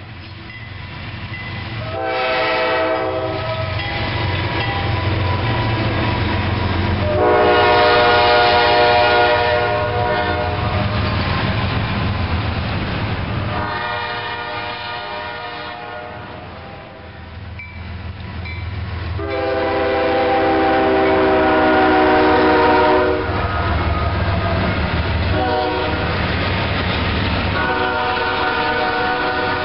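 CSX diesel freight locomotives sounding a multi-chime air horn in a series of about five blasts, the first short and the rest long, over the low rumble of the train. Double-stack intermodal container cars clatter over the rails as the train passes close by.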